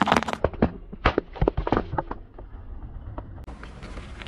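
Car tyre crushing a balloon filled with Orbeez water beads: a loud crushing noise at the start, then a quick run of sharp pops and cracks for about two seconds as the beads and balloon give way.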